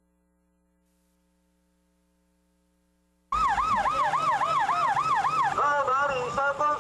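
Near silence with a faint hum for about three seconds, then an emergency vehicle's siren starts abruptly. It is a fast yelping wail that rises and falls about three times a second, and it turns into a choppier, layered wail near the end.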